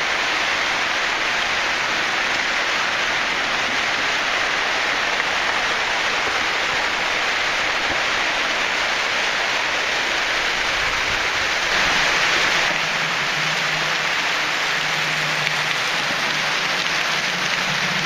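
Water falling and spraying down a pothole shaft: a steady rush like heavy rain.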